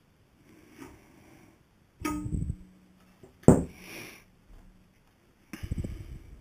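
Handling noise from a homemade CNC's X-axis ballscrew end as the stepper motor is taken off and the bare screw end is handled. A knock with a low rumble about two seconds in, a sharp click a moment later (the loudest), and a rattling clatter near the end.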